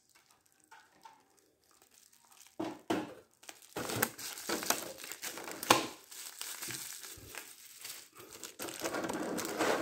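Thin clear plastic clamshell packaging being handled and pried open by hand, crinkling with sharp clicks and cracks. It starts about two and a half seconds in, after a near-quiet stretch.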